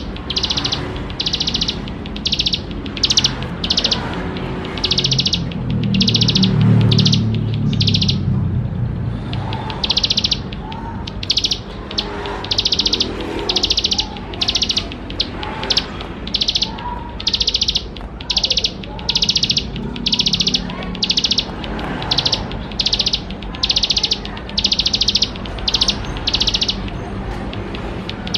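Ciblek sawah (plain prinia) singing a fast series of buzzy, high-pitched notes, about one to two a second, with a brief pause about nine seconds in. A low rumble underlies it.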